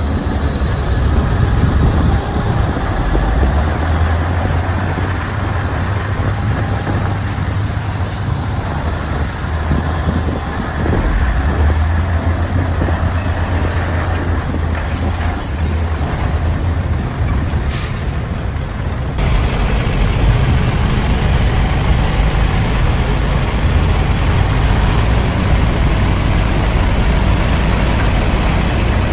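Bulldozer's heavy diesel engine running steadily under load, with two brief sharp clicks a little past halfway. The engine sound changes abruptly about two-thirds of the way through.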